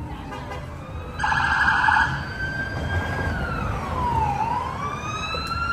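Police emergency vehicle siren: a short, fast-warbling burst about a second in, then a slow wail that falls in pitch and rises again.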